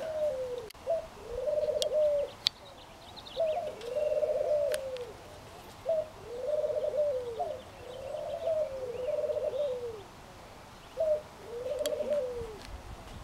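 A dove cooing over and over: low, arching coos about every second and a half, most of them a short note followed by a longer drawn-out one, with a few faint high chirps.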